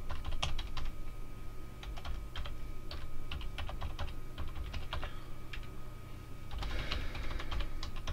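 Computer keyboard being typed on in irregular runs of keystrokes, with a pause of about a second and a half past the middle, over a faint steady hum.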